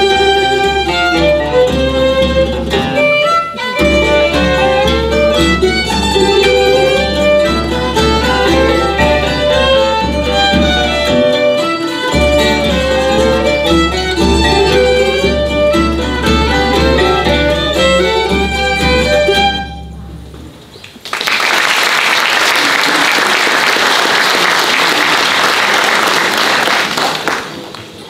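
Azorean rancho folk ensemble of violins and plucked strings playing a tune with a steady beat, ending about 20 seconds in. About a second later, audience applause starts and lasts about six seconds, then drops away near the end.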